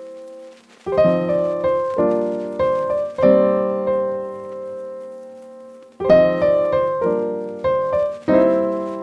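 Background music: piano notes and chords struck and left to ring and fade, with one chord held long in the middle.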